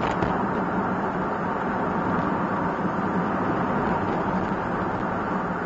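Steady engine and road noise inside the cabin of a kei one-box van driving at an even speed, with a faint steady hum under it.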